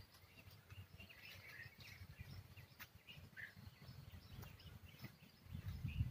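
Faint outdoor ambience: a few short bird chirps over a low rumble on the microphone. The rumble grows louder near the end.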